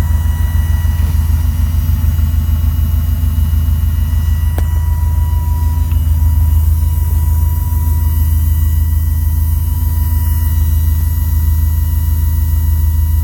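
Walbro 255 L/h electric fuel pump running steadily, a thin whine over a strong low, fast-pulsing hum, with one short click about four and a half seconds in. Its sound has changed since it was fitted, and the owner asks whether it is an abnormal noise.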